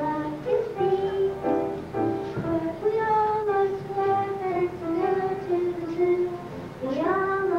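A child singing a solo melody into a microphone, with held notes, over musical accompaniment.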